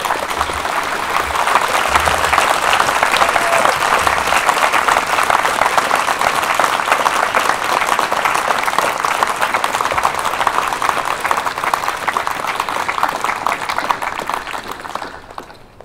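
Audience applauding, a long steady round of clapping that fades away near the end.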